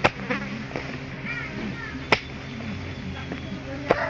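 Hoe blade chopping into soil, three sharp strikes about two seconds apart.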